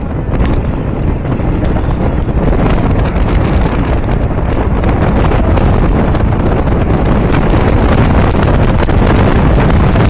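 Wind buffeting the microphone on the outside of a moving car, mixed with road and engine noise, growing louder as the car gathers speed.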